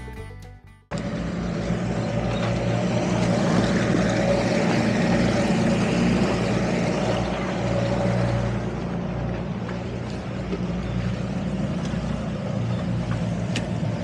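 Music cuts off about a second in. Then the towboat's twin outboard motors run steadily under tow load, under a broad rush of wind and water.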